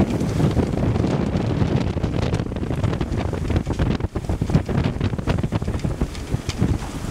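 Wind buffeting the microphone in gusts, over the rush of water streaming along the hull of a sailing yacht under way.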